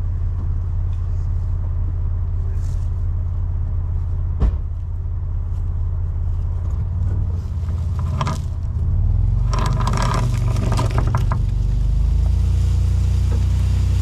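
A motor vehicle engine idling steadily. About nine seconds in it gets louder, with scraping and rustling in dry leaves on top.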